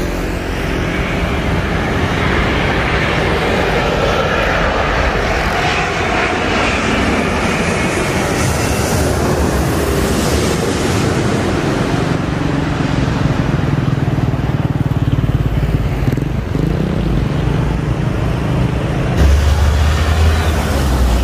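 An Airbus A330-900 airliner with Rolls-Royce Trent 7000 engines on landing approach, passing low overhead. Its jet engine whine swells, then gives way to a lower rumble as it goes past, over steady road traffic noise. About 19 s in the sound cuts abruptly to a low traffic rumble as another airliner approaches in the distance.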